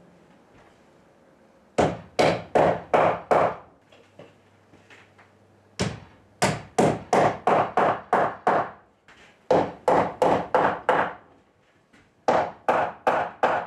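A hammer driving a wooden dowel into a drilled hole in a timber beam. It comes as four runs of quick, even blows, about three a second, with short pauses between the runs.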